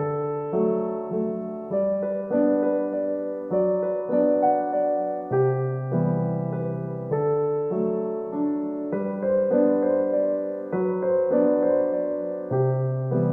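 Background music: a gentle piano piece, its notes and chords struck in a steady, unhurried rhythm.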